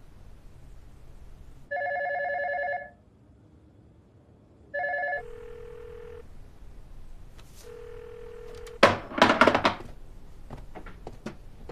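Telephone call sounds: an electronic warbling phone ring, twice, then a steady single-pitch ringback tone in two long beeps. Near the end comes a short burst of loud knocks and clatter.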